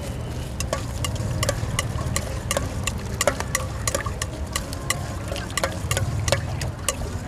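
Utensils clinking sharply and irregularly against a bowl, about three or four times a second, as a Thai spicy salad (yam) is mixed, over a steady low hum.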